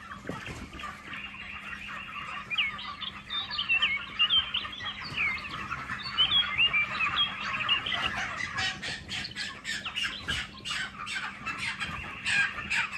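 A flock of month-old broiler chickens chirping and squawking in many short calls. From about eight seconds in, rapid scuffling clicks come in over the calls.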